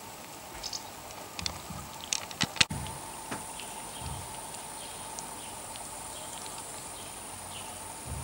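Outdoor pond ambience: scattered light clicks and taps in the first few seconds, the loudest about two and a half seconds in. After that a steady, thin, high-pitched tone sets in suddenly, over a faint background hiss and occasional soft low thuds.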